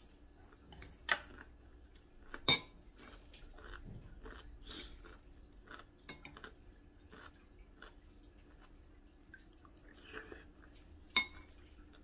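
Metal spoon clinking against a ceramic soup bowl three times, the second clink the loudest, each with a brief ring. Quiet chewing and soft eating sounds in between.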